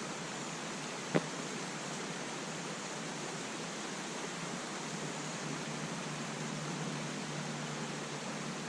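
Steady rushing of a river waterfall pouring into a swimming hole, with one sharp click about a second in.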